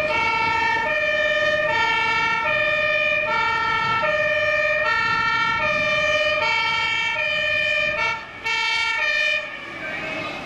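German two-tone emergency siren (Martinhorn) on an approaching fire brigade vehicle, alternating high and low notes about every three-quarters of a second. It breaks off briefly about eight seconds in, sounds once more, then cuts off about a second before the end.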